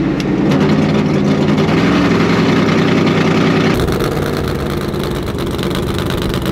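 Supercharged engine of an old Cadillac burnout car running steadily under light throttle while cruising, heard first from inside the cabin and then, after a sudden change about two-thirds through, from outside alongside the moving car with added road and wind hiss.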